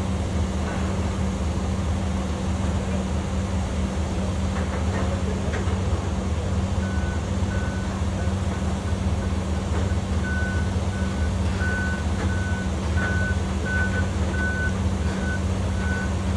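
Electric forklift's reverse alarm beeping about one and a half times a second, starting about seven seconds in, over the steady low hum of an idling truck engine.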